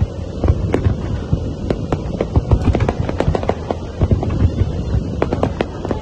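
Aerial fireworks shells bursting in quick succession: a dense, irregular run of bangs and crackles over a continuous low rumble.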